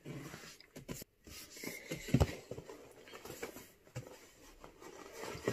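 Handling noise as a cardboard box is picked up and turned in the hands: scattered light knocks and rustles, with one thump about two seconds in.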